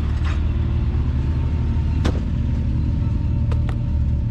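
Side-by-side UTV engine running at a steady low idle, with a sharp knock about two seconds in and two light clicks about a second and a half later.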